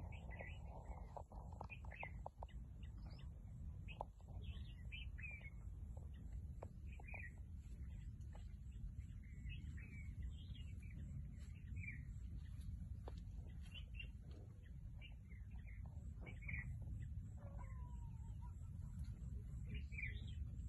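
Small birds chirping: many short, separate high calls scattered throughout, over a steady low rumble. A few sharp clicks in the first few seconds.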